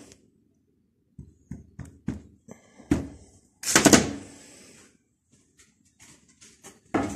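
Metal tools and engine parts knocking and clinking on a workbench during a crankshaft oil-seal change on an Antor (Lombardini) engine. There are several short taps, then one louder ringing metal clank about four seconds in, followed by a few faint clicks.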